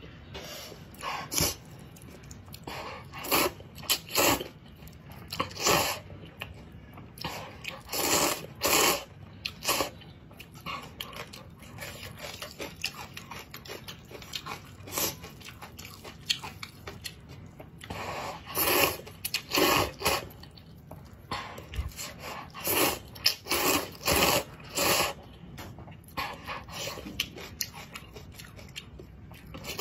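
A person slurping and chewing noodles in broth close to the microphone, in repeated short noisy bursts with quieter chewing between.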